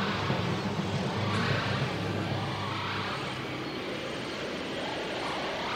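Steady low rumble with a rushing, wind-like noise from the film's soundtrack, easing slightly about two seconds in.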